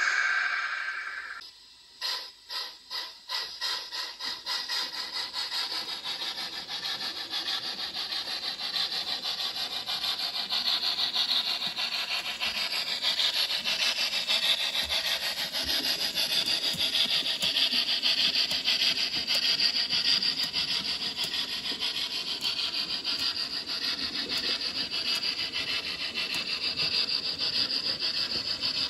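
Digital sound of a model SJ steam locomotive's exhaust: slow chuffs begin about two seconds in and quicken until they run together into fast, continuous chuffing. A lower rumble joins about halfway through.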